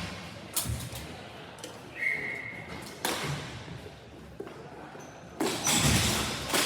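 Ball hockey play in a rink: scattered sharp clacks and thuds of sticks striking the ball and the boards. A short high tone sounds about two seconds in, and a louder noisy clatter comes near the end.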